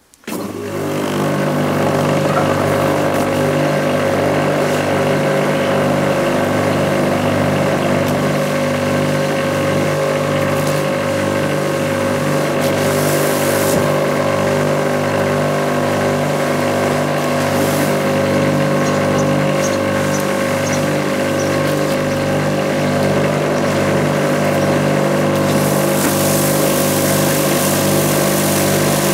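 Ruris Pro Power Jet 1900 pressure washer's 2500 W induction motor and pump running steadily under load, with the hiss of water spraying from the floor brush onto concrete. The machine starts suddenly at the beginning and is at full speed within about a second. The spray hiss grows louder for a moment about 13 seconds in and again near the end.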